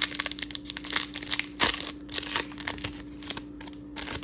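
Foil booster pack of Pokémon trading cards being torn open by hand: a run of sharp crinkling crackles, thick at first and sparser later as the wrapper is peeled back.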